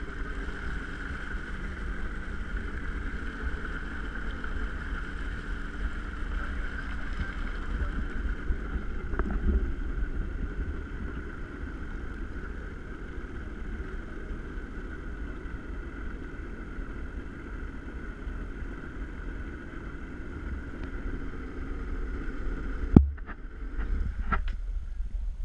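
Boat motor idling on the water, a steady hum with a constant whine and a low rumble. About 23 seconds in there is one sharp knock, the loudest moment, followed by a few faint clicks.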